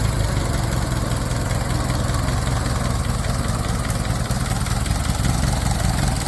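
1926 Ford Model T's four-cylinder flathead engine idling steadily, a fast even run of firing pulses.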